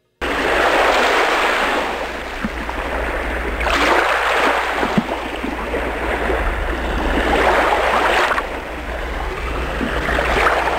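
Sea waves washing in, swelling and easing about every four seconds over a steady low rumble.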